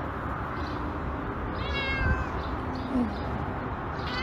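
Orange-and-white cat meowing: two short, high meows, one about halfway through and one at the very end.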